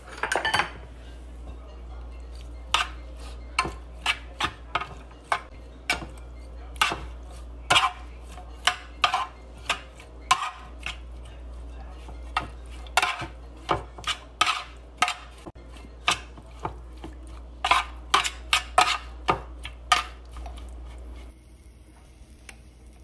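Raw shrimp being seasoned and tossed by hand in a dish: irregular sharp clicks and clinks, one to three a second, over a low steady hum. The clicks stop shortly before the end.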